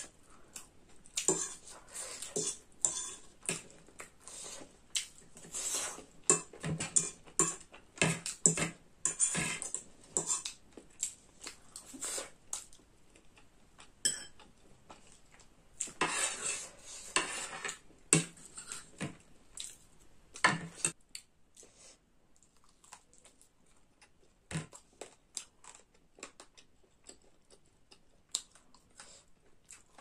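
Metal fork and spoon clinking and scraping against a ceramic plate of noodles, in many short clicks and scrapes, busy for about twenty seconds and then only now and then.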